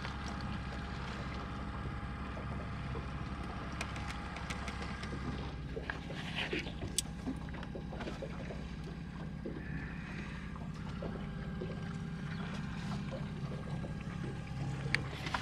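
Boat motor running steadily while the boat trolls, a continuous low drone with a few faint clicks and knocks on board.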